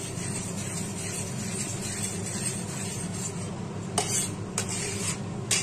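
Milk boiling in a steel pan while a spatula stirs it: a steady bubbling hiss with soft stirring, and a few louder scrapes of the spatula against the pan about four seconds in. The milk is being reduced down to khova over a high flame.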